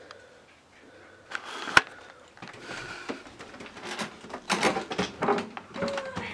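Indoor handling noises: scattered clicks and a single sharp knock about two seconds in, then a busier stretch of rustling and bumps near the end.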